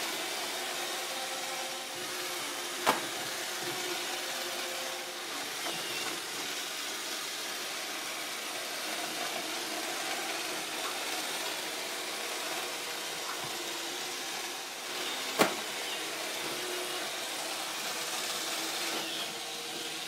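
A robot vacuum cleaner running with a steady whir. Two single sharp knocks come about three seconds in and again about fifteen seconds in, its bumper striking the table leg it is working around.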